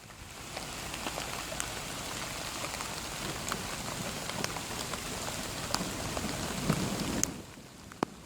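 Heavy rain falling: a steady hiss with many scattered sharp ticks of drops striking a hard surface. About seven seconds in the sound drops away abruptly, leaving a quieter hiss and one sharp click.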